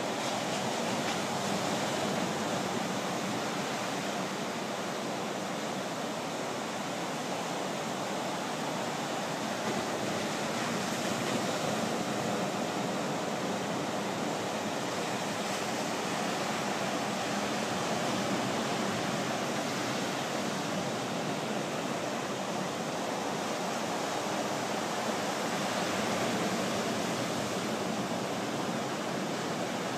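Atlantic surf breaking on a sandy beach: a steady rushing wash of waves that swells and eases slightly every several seconds.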